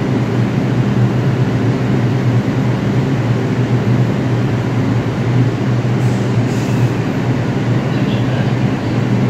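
A New York City subway train of R142 cars standing at the platform with its doors open, humming steadily. The hum is one even drone with a couple of low tones and does not change.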